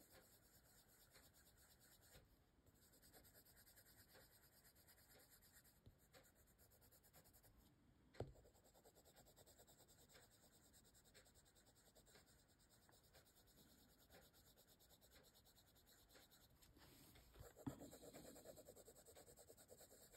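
Faint scratching of a bright pink coloured pencil shading on paper, a little louder near the end, with a single short tick about eight seconds in.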